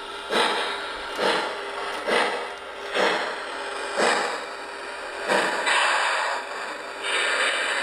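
Model steam locomotive running on the layout, giving a rhythmic chuff, a puff of noise about once a second, over a faint steady hum.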